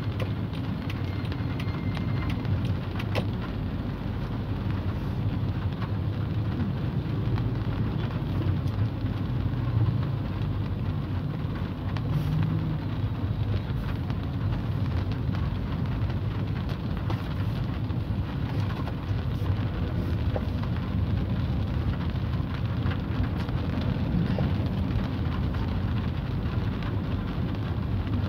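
Rain hitting a car's windshield and roof, heard from inside the cabin: a steady wash of rain with scattered small ticks of drops, over a low rumble.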